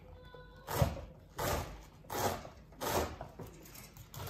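A kitchen knife slicing through bunched covo leaves into thin strips on a wooden cutting board: four slicing strokes about one every 0.7 seconds, the first the loudest.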